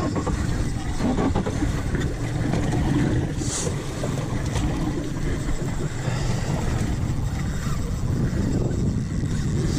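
A boat's engine running steadily, with a brief hiss about three and a half seconds in.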